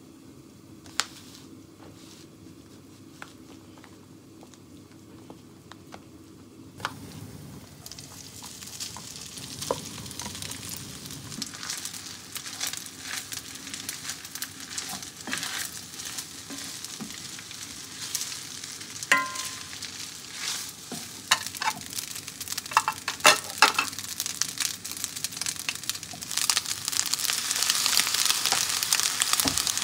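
Egg-coated rice frying in a cast-iron braiser, sizzling while a wooden spatula stirs and scrapes it, with scattered clicks and knocks. The sizzle builds from about seven seconds in and turns louder and sharper near the end, as soy sauce is poured onto melting butter in the hot pan.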